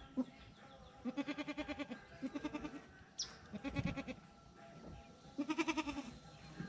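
Goat kids bleating four times, each call a quavering, pulsing bleat lasting under a second. A short high chirp comes about three seconds in.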